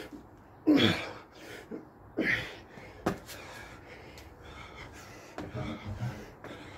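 A man breathing hard and gasping, winded from burpees and jump squats, with a few loud exhales, the loudest falling in pitch just under a second in. A single sharp thud about three seconds in.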